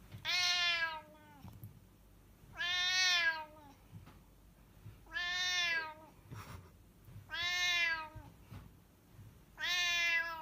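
A cat meowing in five long, drawn-out calls about two and a half seconds apart, each sliding down in pitch at the end, with a short extra meow at the very end.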